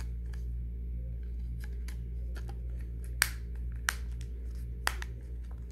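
Sharp plastic clicks as an LG Neon GT365 phone's battery cover is snapped back on and the handset handled, the loudest about three seconds in, over a steady low hum.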